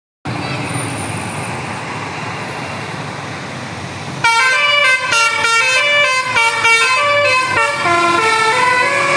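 Steady bus engine and road noise, then about four seconds in a Basuri 'telolet' musical air horn starts playing a quick tune, note after note.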